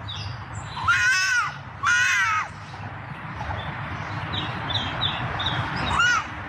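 A cat meowing: two drawn-out, rising-and-falling meows about a second apart, then a short one near the end, over a steady low rumble.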